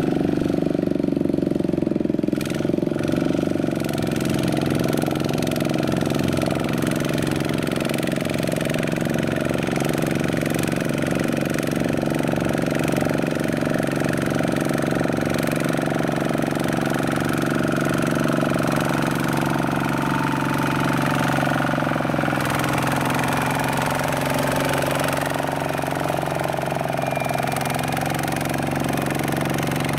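Two-wheel walking tractor's single-cylinder diesel engine running steadily while hauling a loaded trailer through mud; in the second half its speed dips and picks up again as it works under load.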